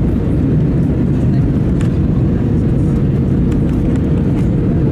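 Steady cabin noise inside an Airbus A320-214 at a window seat: a constant low rush of engine and airflow with a faint steady hum above it.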